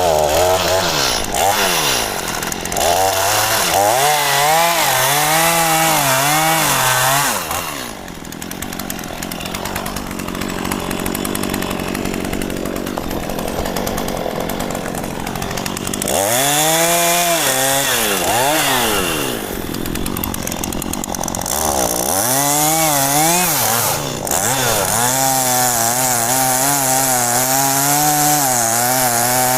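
Two-stroke chainsaw cutting into mahogany wood, its engine pitch wavering under load. About a quarter of the way in it eases off for several seconds, then revs up and bites into the wood again, cutting steadily to the end.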